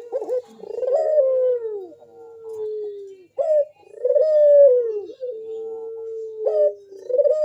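Puter dove (local Indonesian turtle dove) cooing in full song. Each phrase is a short rising note followed by a long drawn-out coo that slowly falls in pitch. Two phrases sound, and a third starts near the end.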